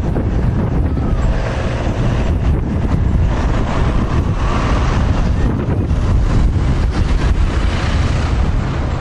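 Wind buffeting the microphone, a loud steady rumble, over the sound of a Class 158 diesel multiple unit running on the line below.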